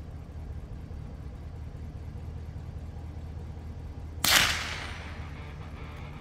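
A single rifle shot about four seconds in: one sharp crack with a short ringing tail, over the steady low hum of an idling vehicle engine.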